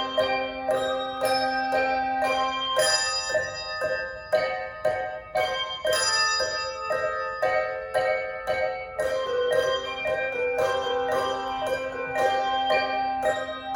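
Handbell choir playing a slow piece, a steady succession of struck bell notes that ring on and overlap. A low note is held under the melody for the first few seconds and again from about two-thirds of the way through.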